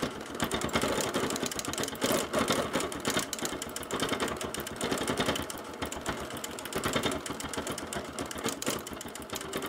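Bernina Q20 sit-down longarm quilting machine running, stitching free-motion with its stitch regulator on: a rapid, continuous needle beat.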